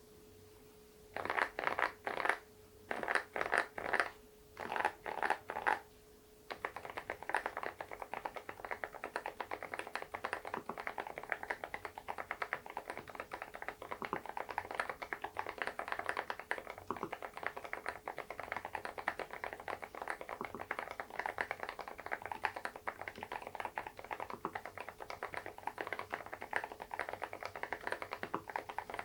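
Fast typing on an SPM PL108W full-size mechanical keyboard: three short bursts of keystrokes, then quick, continuous typing from about six seconds in.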